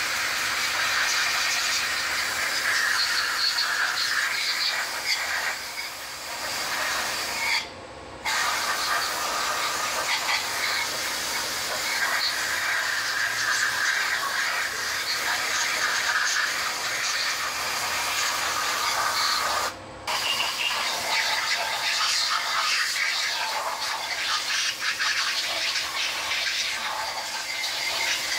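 Compressed-air spray gun hissing steadily as it blasts an engine cylinder head clean, released briefly twice, about 8 and 20 seconds in.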